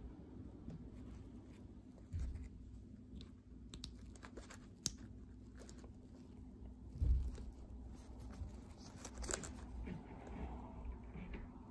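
Soft rustling and crinkling of tulle netting and satin ribbon being handled during hand sewing with a needle and thread, with scattered small clicks, a sharp tick about five seconds in, and low bumps about two and seven seconds in.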